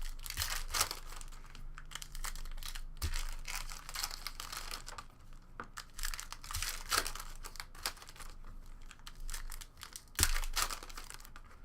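Foil trading-card pack wrappers crinkling and tearing as packs are opened, with cards handled in irregular rustles and a louder knock about ten seconds in.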